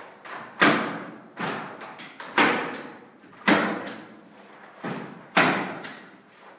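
A series of sharp thuds or slaps, about one a second at uneven spacing, each dying away over about half a second.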